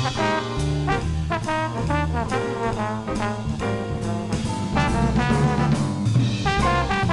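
Live jazz: a trombone plays a solo in quick, running phrases over upright bass and a drum kit.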